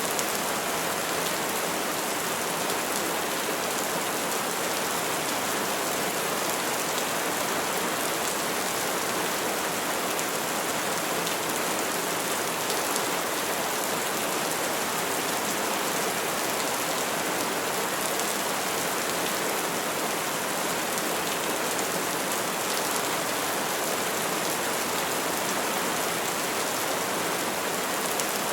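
Steady rain falling on tree leaves, an even hiss of many fine drops with no thunder.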